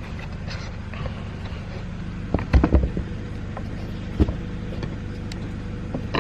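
Hand tools and tool cases being handled in a tool box drawer: a quick cluster of clacks about two and a half seconds in and a single knock a little after four seconds, over a steady low hum.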